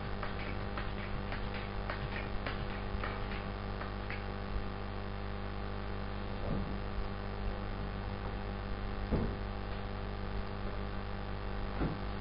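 Steady electrical mains hum, with a run of light clicks in the first four seconds and a few soft knocks later.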